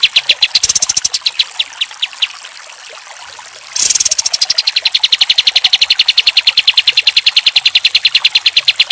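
Kapas tembak bulbul singing its rapid rattling run of sharp repeated notes. The run slows and breaks off after about two seconds. After a short pause it bursts back in abruptly at about ten notes a second and keeps going.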